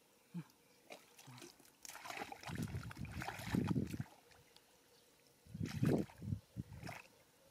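Hands groping and sloshing through thick mud and shallow muddy water while feeling for fish by hand, in two bouts of splashing: one about two seconds in, the other near the end.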